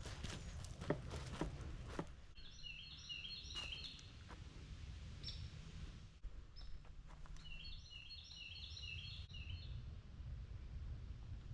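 A songbird singing two phrases of quick, repeated falling notes a few seconds apart, over a steady low rumble. A few sharp clicks come in the first two seconds.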